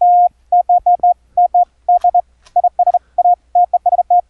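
Morse code sidetone from a 555 timer oscillator through a CW bandpass filter, keyed by a K1EL keyboard keyer: a single steady tone sounding out dots and dashes.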